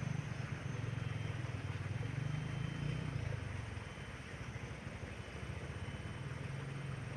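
A small engine running steadily, a low pulsing rumble that eases slightly about halfway through.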